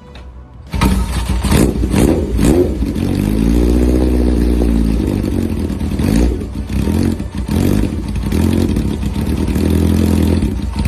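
A motorcycle engine revving, its pitch climbing and falling back twice.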